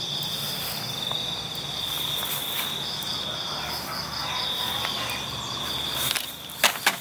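Crickets trilling steadily in a high, continuous chorus with a faint pulsing beat. Near the end a few sharp clicks cut through.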